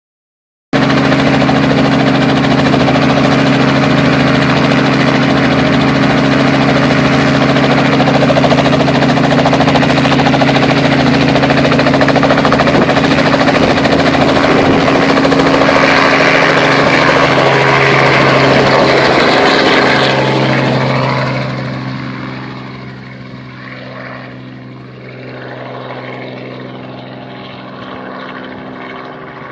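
Robinson R44 helicopter's engine and rotor running loud and steady while it lifts off into a low hover, then the sound drops away quickly about twenty seconds in as it flies off, continuing fainter as it recedes.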